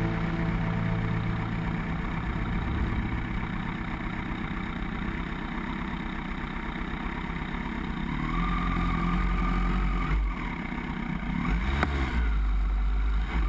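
Kawasaki Ninja sport bike's engine running at low speed as the bike rolls slowly, the revs rising briefly about two-thirds of the way through. A sharp click comes near the end.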